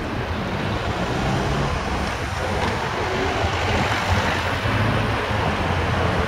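Engine of a police tow truck running as it pulls a car slowly past at close range: a steady low drone over city traffic noise, growing a little louder toward the end.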